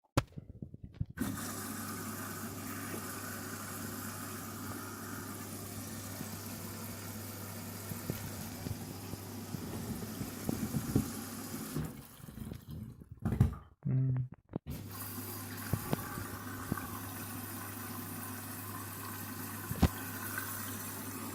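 A Candy washing machine filling its drum with water at the start of a synthetics wash: a steady rush of incoming water over a low hum. It breaks off with a few knocks about twelve seconds in, then carries on as before.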